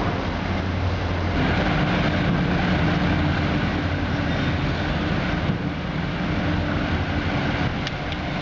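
Steady running noise of a stretch-film shredding line: shredder and belt conveyors carrying shredded plastic film, with a constant low hum and a steady drone that comes in about a second and a half in.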